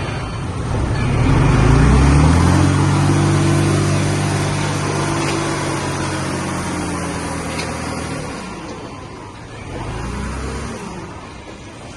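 Diesel engine of a heavy earthmoving machine revving up over about two seconds and holding a steady pitch, then dropping off about eight seconds in. A shorter rev follows near ten seconds.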